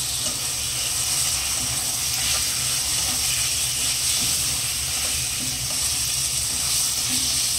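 Chicken pieces sizzling in hot oil with onions and tomatoes in a stainless steel pan. The hiss is steady, and from about midway a plastic slotted spatula stirs and scrapes the pan with light clicks.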